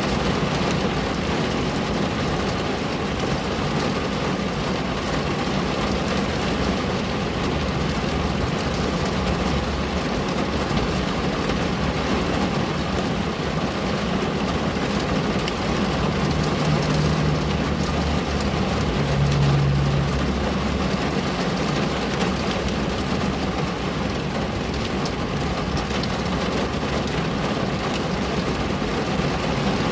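Steady rain on a window glass, an even, unbroken hiss. A low hum rises under it twice in the middle.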